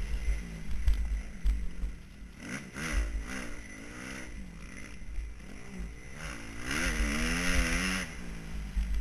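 Motocross bike engine revving up and down as it is ridden round a dirt track, picked up by a camera mounted on the bike, with heavy low buffeting on the microphone. Its longest, loudest rev comes near the end.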